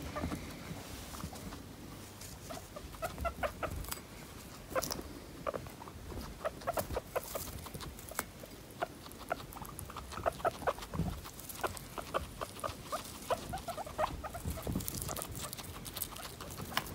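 Guinea pigs chewing and rooting through dried herbs and flowers: a run of quick, crisp crunches and crackles of dry stems.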